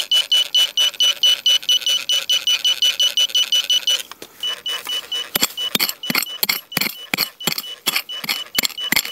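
Metal detector giving a high, fixed-pitch beep about five times a second, signalling metal in the ground. About four seconds in, the beeps turn irregular and are broken up by sharp clicks and knocks.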